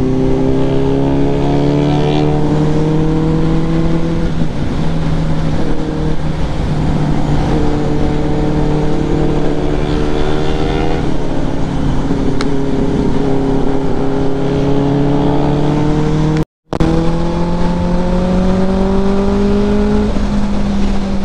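Benelli TNT 600i motorcycle engine running under way, its pitch climbing slowly and falling back several times as the rider accelerates and changes gear, over steady wind and road noise. The audio cuts out for a moment about three-quarters of the way through.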